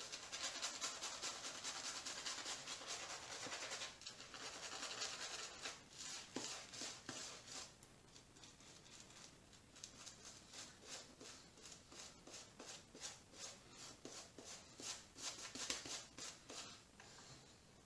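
Stirling badger shaving brush swirling and scrubbing soap lather on the face, a soft rapid scratchy rustle of many quick brush strokes, fading a little for a few seconds midway.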